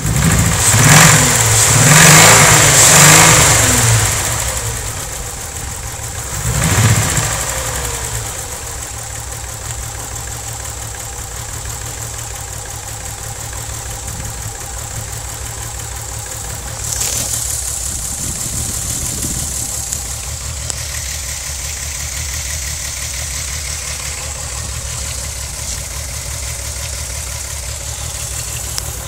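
VW 12-valve VR6 engine revved up a few times near the start and once more about seven seconds in, then settling to an uneven idle. It is misfiring at idle, mainly on cylinders 2, 3 and 6, despite a new coil pack, spark plugs and wires.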